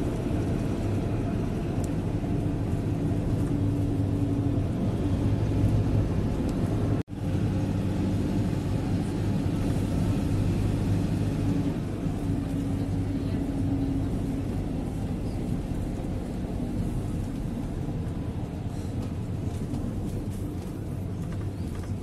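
Steady rumble of a moving motor vehicle, engine hum and road noise, with no sudden events. The sound cuts out for a split second about seven seconds in.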